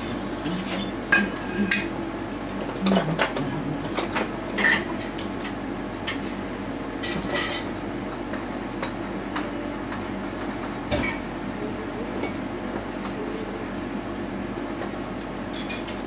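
Metal palette knife clinking and scraping as oil paint is picked up and worked on the palette and canvas, in irregular short strokes, most of them in the first half. A steady low hum runs underneath.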